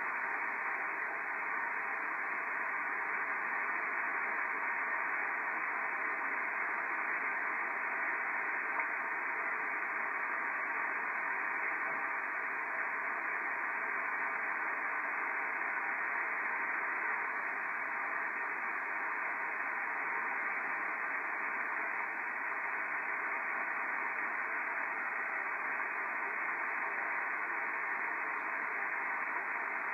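Steady hiss of band noise from a Yaesu FT-1000MP Mark-V shortwave transceiver's speaker, receiving single-sideband on the 20-metre band with no station coming through. It is a rushing noise with no low bass and no treble, cut off sharply above at the receive filter's edge.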